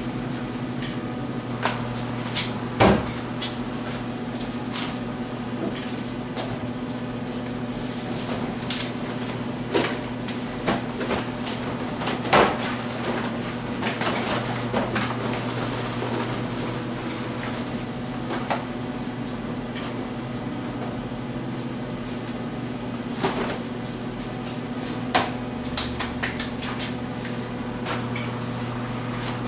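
Scattered knocks and clatter as metal glaze-storage bins and a bag of powder are handled, with a hiss-like stretch about halfway through as dry Custer feldspar is poured from the bag into its bin. A steady low hum runs underneath.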